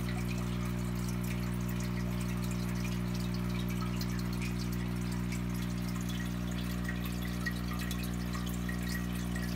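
Aquarium pump humming steadily, with water bubbling and splashing in the tank.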